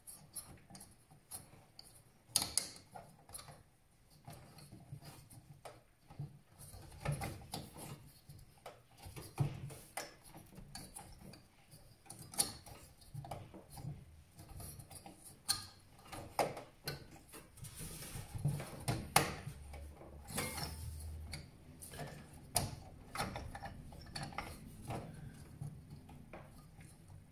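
Irregular clicks, taps and light knocks of plastic and metal parts being handled while an Intel stock CPU cooler is fitted back onto a desktop PC's motherboard.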